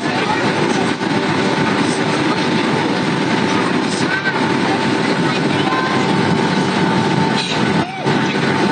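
Airliner cabin noise heard from inside the passenger cabin on the landing approach: a loud, steady rush of engines and airflow with a thin steady whine.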